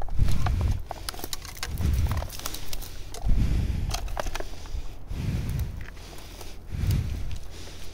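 Footsteps crunching and snapping through dry twigs and forest litter, with a dull low thump about every second and a half.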